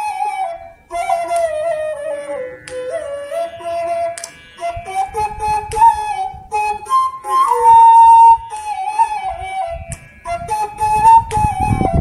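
Bansuri (side-blown bamboo flute) playing a single-line melody in flowing stepwise phrases with small slides between notes, breaking briefly for breath about a second in and again near the end, with breath hiss on the tone.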